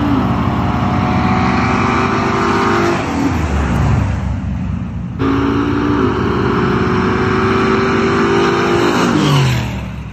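Drag-racing vehicles at full throttle, engine pitch climbing with a gear change, then dropping steeply as they pass. An abrupt cut about five seconds in starts a second run of the same kind, which also ends in a falling pass-by.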